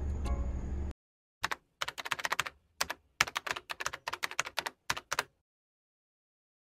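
Computer keyboard typing sound effect: rapid, irregular key clicks in several quick runs for about four seconds. The background music cuts off about a second in, just before the typing starts.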